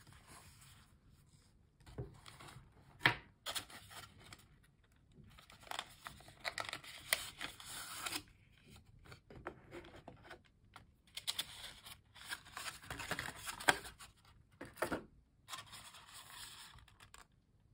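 Paper and cardboard packaging being handled: a chocolate box's plastic tray sliding out of its printed paper sleeve, with scraping and rustling in several spells and a few sharp taps.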